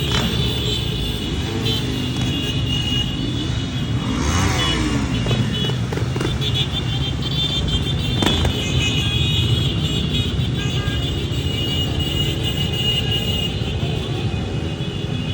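Small ATV and motorcycle engines running loudly, one revving up and down about four seconds in, with background music.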